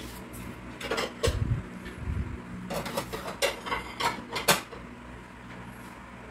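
A string of sharp clinks and knocks of kitchenware being handled, bunched between about one and four and a half seconds in, with a couple of low thumps, over a faint steady low hum.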